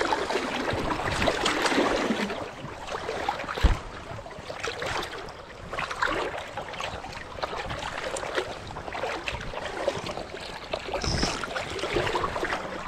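River current rushing and sloshing close to the microphone, with scattered small knocks and splashes and one dull thump a little under four seconds in.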